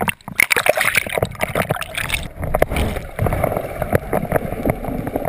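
Seawater splashing and sloshing around the camera at the surface, then, about two seconds in, the sound turns muffled, with low gurgling and bubbling as the camera goes under.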